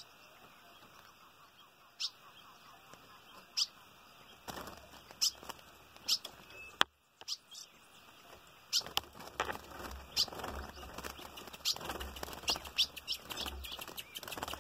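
Short, sharp chirp calls of ultramarine grosbeaks (azulão), spaced a second or two apart at first. From about nine seconds in, a bird flaps and flutters its wings against a wire cage under a quickening run of chirps. A single sharp click sounds about seven seconds in.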